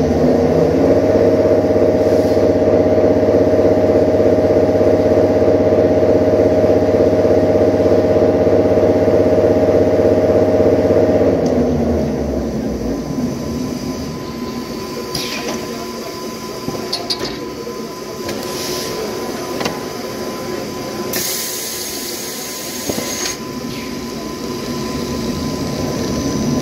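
Toilet paper and kitchen towel rewinding machine running with a loud, steady multi-pitched hum that drops away about twelve seconds in to a quieter running sound. A few clicks follow, then a hiss of about two seconds, and the hum builds again near the end.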